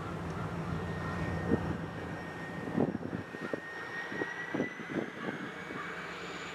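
EMD SD40-2 and SD40-3 diesel locomotives pulling out slowly under power, their 16-cylinder engines droning with a high whine that slowly rises in pitch as they rev up. Several sharp knocks sound in the middle.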